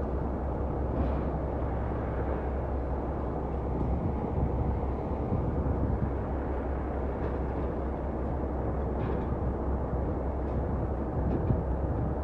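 Heavy diesel truck engine running steadily with a low, even rumble.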